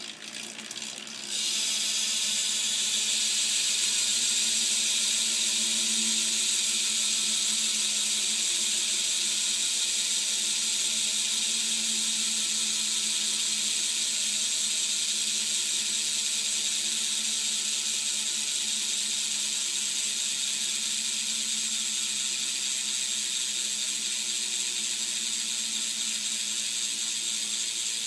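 Éclat BMX rear hub freewheeling: a few slow ratchet clicks, then about a second in the wheel is spun and the hub's pawls set up a loud, steady, high-pitched buzz that eases off slightly as the wheel slows.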